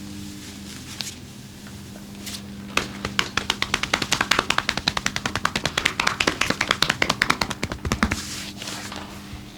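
Hands striking the body in rapid percussive massage strokes, a fast even run of sharp slaps at about eight a second lasting some five seconds, starting about three seconds in after a few single taps.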